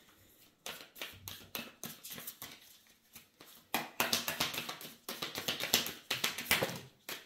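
Oracle cards being shuffled and handled by hand: a quick, irregular run of flicks and slaps of card stock, louder about halfway through.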